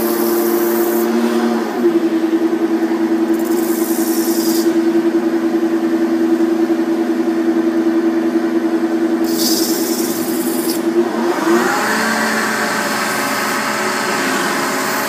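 CNC metal spinning lathe running as its roller forms a spinning sheet-metal shell: a steady machine hum made of several tones that step in pitch about two seconds in and glide again near the end, with a fluttering pulse in between. Two short bursts of hiss come about four and ten seconds in.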